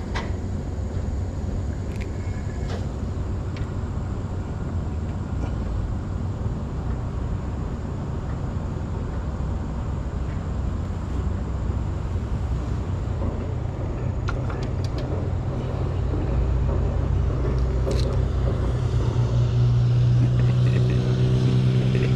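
Low, steady engine rumble that grows louder in the second half as a motorboat's engine approaches, with a few faint clicks.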